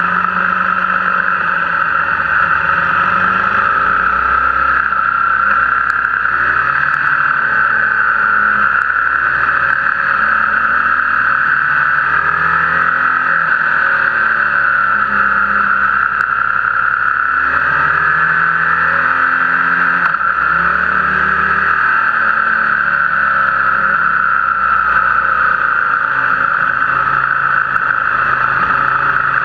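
BMW R1200GS boxer-twin engine running under way, its revs rising and falling through the bends, under a steady rush of wind noise.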